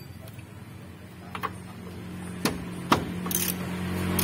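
Socket wrench working the bolts of a Mitsubishi L300's worn lower ball joint: a few sharp metal clicks and knocks, the loudest near the end, over a steady low hum.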